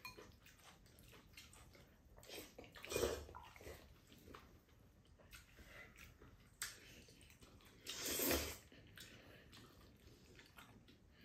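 Two people slurping and chewing sauce-coated jjajang noodles, wet mouth noises in a few short bursts, the longest and loudest about eight seconds in, with a light click of chopsticks on a bowl a little before it.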